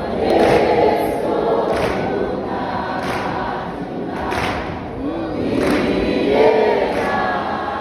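A choir singing a gospel song, many voices together, with a regular beat about every second and a half.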